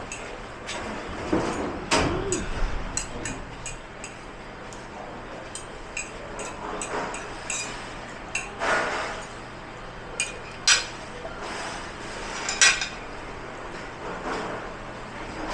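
Dishes, pots and cutlery clinking and clattering as they are handled and washed. Sharp knocks and clinks come irregularly throughout, with a couple of louder clanks in the second half.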